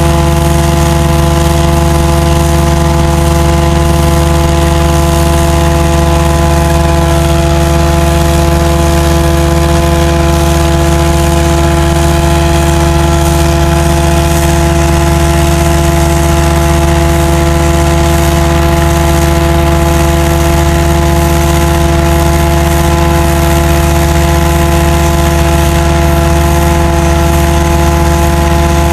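Combination sewer jetter and vacuum unit running, jetting and vacuuming at the same time: a loud, steady machine hum that holds one pitch without change.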